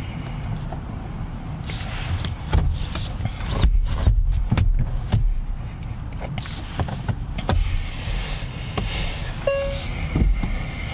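Cabin sound of a 2022 Hyundai Tucson Hybrid starting to move slowly, heard from inside the car: a steady low rumble with a run of knocks and clicks a few seconds in. A short beep sounds near the end.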